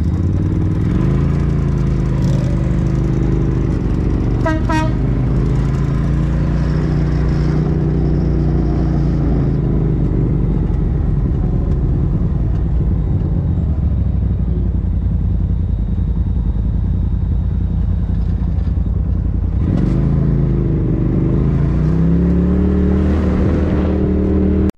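Polaris RZR Turbo side-by-side heard from the cab, its turbocharged twin-cylinder engine running at low road speed and revving up to pull away about a second in and again near the end. A short horn toot sounds a few seconds in.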